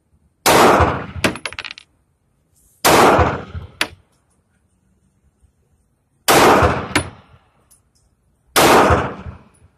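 Four shots from a 9mm Luger pistol, fired singly a few seconds apart, each followed by about a second of echo. Brief metallic clinks follow the shots.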